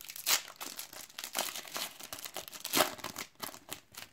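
Foil trading-card sachet being torn open and crinkled in the hands: irregular crackling, sharpest about a third of a second in and again just before three seconds.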